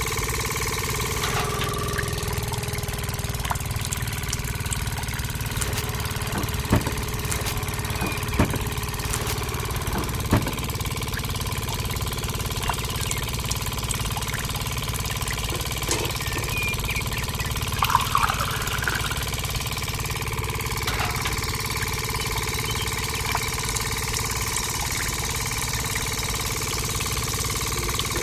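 A small motor running steadily, with a dense low hum and a faint held whine, broken by a few light clicks and taps.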